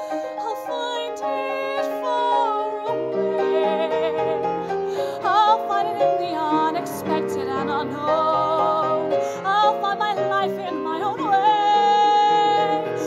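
A woman singing a musical theatre song with vibrato over instrumental accompaniment. The accompaniment fills out with lower notes about three seconds in.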